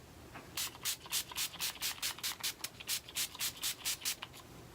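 Pump-spray bottle of Tarte Rainforest of the Sea facial mist squirted over and over in quick short hisses, about five a second, stopping just after four seconds in.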